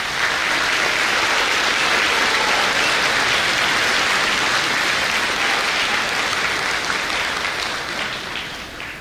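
Large audience of students and guests applauding, a dense steady clapping that begins abruptly and tapers off near the end.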